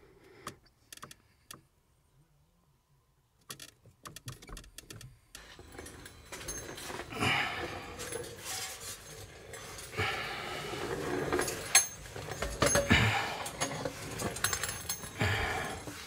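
A few faint clicks and a short dead-quiet stretch. After about five seconds come rustling, scraping handling noise and light metallic clinks as the camera is carried and knocked about under the car's dash and around the engine bay.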